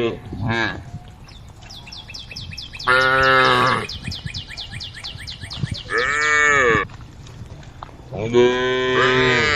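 Cows mooing: three loud, drawn-out calls a few seconds apart, the middle one shorter, rising then falling in pitch.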